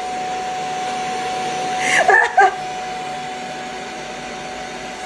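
Vacuum cleaner running steadily, a constant whine over a rushing hiss, with a brief high-pitched vocal sound about two seconds in.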